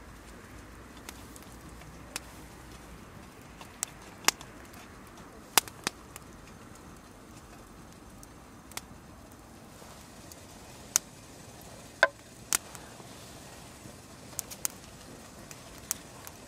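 Wood fire crackling: irregular sharp pops and snaps, about a dozen, over a low steady hiss.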